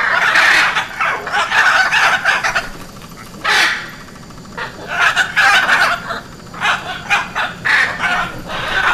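Hyacinth macaws calling: loud, harsh calls in runs, with a single short call about three and a half seconds in and quieter gaps before and after it.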